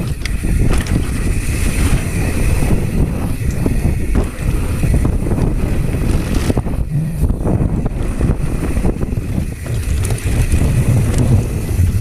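Mountain bike ridden fast down a dry dirt trail: a steady rumble of wind on the microphone and tyres on loose dirt, with frequent short knocks and rattles from the bike over bumps.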